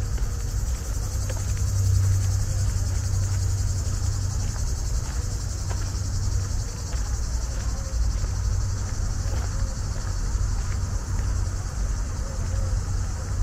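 A steady, high, continuous chirring of insects, over a low steady rumble, with faint regular footsteps on a dirt path.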